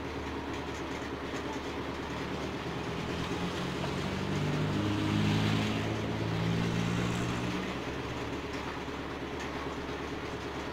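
Steady heavy rain, with a low engine drone that swells to its loudest about halfway through and then fades away.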